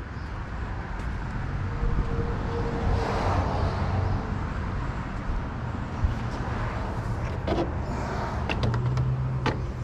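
A car passing on the street, swelling about three to four seconds in over a steady low outdoor rumble. A few sharp knocks near the end.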